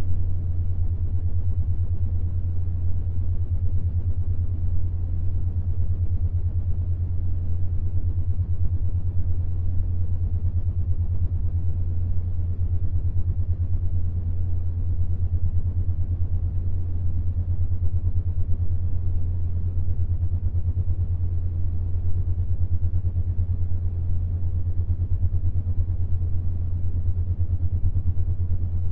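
Binaural-beat tone: a steady low hum with a faint rumbling noise beneath it, made to give a 7.83 Hz beat, the Schumann resonance, when heard on headphones.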